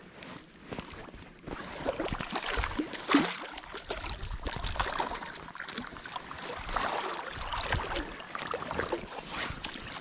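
River water splashing and sloshing irregularly, with many small crackles and one sharper splash about three seconds in.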